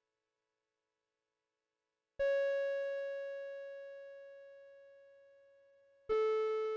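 UNI-PEX MZ-101A music chime, an old model made before melody ICs, sounding two notes about four seconds apart. Each note starts sharply and fades slowly, and the second is lower than the first. The sound is recorded straight from the chime's audio output.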